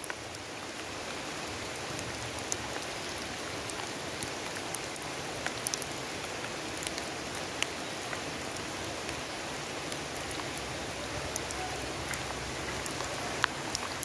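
Steady rain falling, with occasional sharp ticks of drops striking close by.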